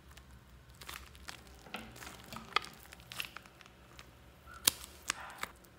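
Scissors snipping into a rubber pineapple-shaped squishy toy while fingers squeeze it: rubbery crinkling and scraping broken by several sharp clicks, the loudest near the middle and again towards the end.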